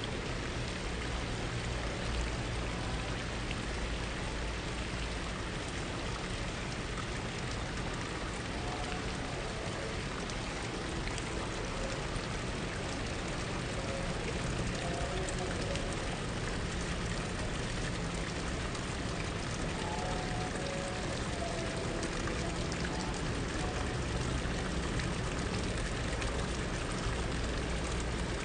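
Water from garden fountains splashing and trickling steadily into their basins.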